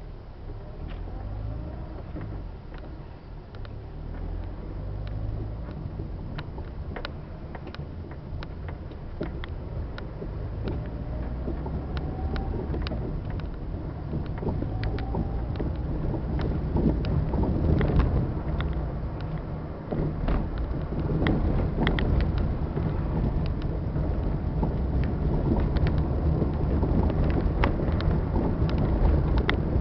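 Car interior noise while driving: low engine and tyre rumble that grows louder as the car gathers speed, with frequent small clicks and rattles.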